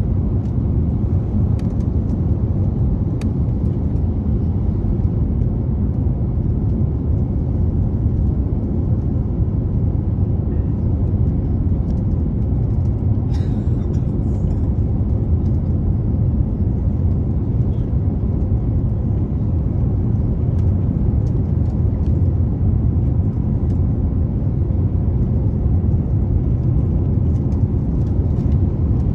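Steady low rumble of an Airbus A350-941 airliner heard from inside the passenger cabin on its landing approach: engine and airflow noise, even throughout with no sudden changes.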